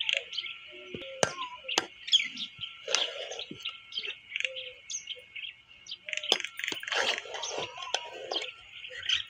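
A steel ladle clinking and scraping against a steel cooking pot as cooked rice and potatoes are turned over, with sharp clinks several times. Birds chirp steadily in the background.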